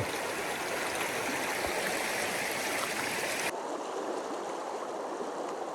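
Small mountain stream rushing over rocks, a steady wash of water. About three and a half seconds in, the sound changes abruptly and becomes thinner and slightly quieter.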